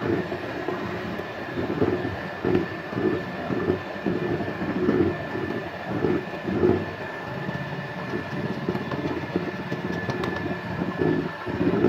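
Electric hand mixer running steadily with a high motor whine, beating cake batter as flour is sifted in, with a rhythmic knocking about twice a second.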